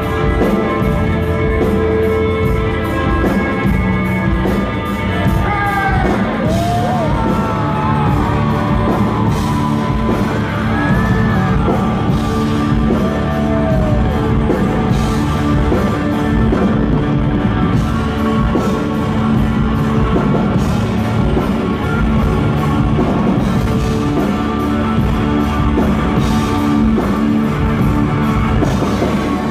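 Live rock band playing, heard from the audience in a large hall: electric guitars and drums, with a sung vocal line coming in about six seconds in.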